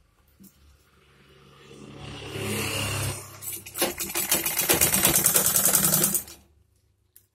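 Usha sewing machine stitching a zip onto track suit fabric. It builds up over a couple of seconds, dips briefly, then runs fast with rapid, even stitching ticks and stops about six seconds in.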